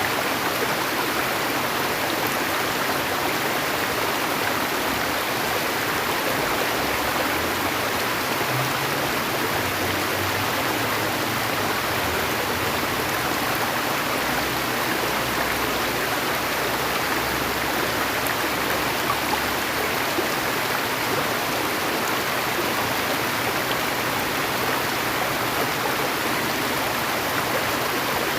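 Steady rushing of flowing stream water, constant and unbroken.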